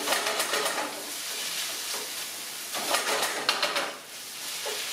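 Turkey and vegetables sizzling in a frying pan with a steady hiss, stirred and scraped around the pan in two bouts of about a second each, one at the start and one past the middle.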